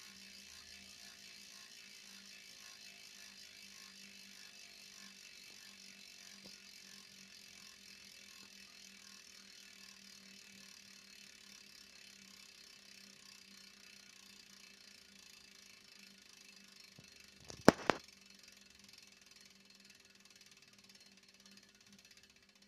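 Campagnolo Shamal Ultra rear hub's freehub ticking as the wheel spins freely, its pawl clicks so fast they run together into a steady buzz that slowly fades as the wheel slows. About three-quarters of the way through, two sharp knocks stand out as the loudest sound.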